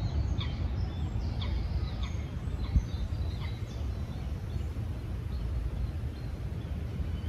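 Small birds chirping with quick, high, downward-sweeping calls, busiest in the first three seconds, over a steady low outdoor rumble. A single knock sounds about three seconds in.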